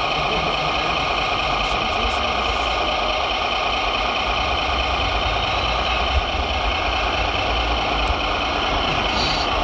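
Steady diesel-truck engine sound from radio-controlled model trucks, running evenly with a low rumble underneath. A small tap sounds about six seconds in.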